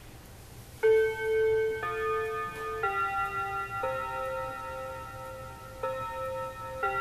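Seth Thomas wall clock playing its quarter-hour chime tune, one bell-like note about every second, starting about a second in. It chimes at about 7:52 instead of 7:45, the clock's intermittent mistimed-chime fault.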